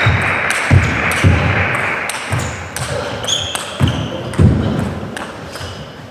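Table tennis rally: the celluloid ball clicks sharply off the rubber bats and the table, about every half second. It fades quieter towards the end.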